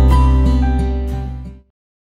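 Background music with plucked guitar over a steady bass, fading out and stopping about one and a half seconds in.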